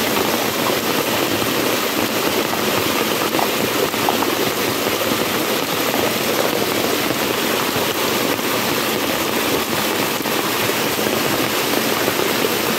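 Water rushing down a narrow rock channel by a small stream, a steady, even rush.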